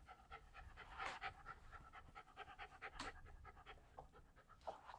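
Miniature Australian Shepherd panting quickly and faintly, about five breaths a second, with a couple of light clicks about one and three seconds in.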